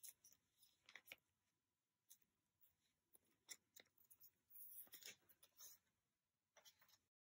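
Faint crinkles and small clicks of plastic card sleeves and binder pages being handled as a photocard is slid into its pocket, with a longer rustle about halfway through; the sound cuts to dead silence near the end.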